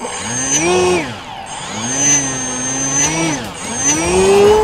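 Small brushless electric motor (2206 size) spinning a 6-inch propeller on a foam RC plane, throttled up and down: the pitch rises, holds, drops, rises again and holds, then climbs higher near the end. A thin high whine rides above it.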